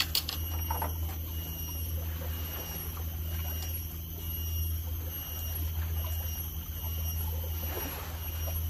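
A fishing rod being cast, with a couple of sharp clicks right at the start, over a steady low hum.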